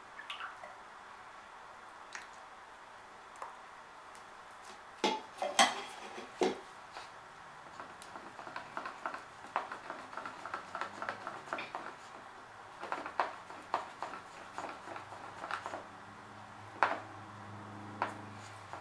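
Metal ladle and strainer clinking against cups while acrylic pour paint is stirred and transferred. A few loud knocks come about five to six seconds in, then a long run of quick small clicks and scrapes, and two sharper knocks near the end.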